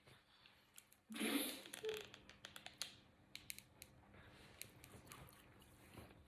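Faint sharp clicks and crinkles from handling a malt loaf and its packet, after a short breathy noise about a second in.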